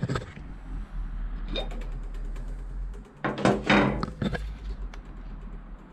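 A few soft knocks and rustling handling noises, one about a second and a half in and a cluster around three to four seconds in, over a low steady hum.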